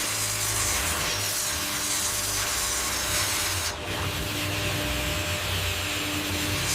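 Steady machinery noise in a plywood mill: a broad hiss over a low hum, dipping briefly about four seconds in.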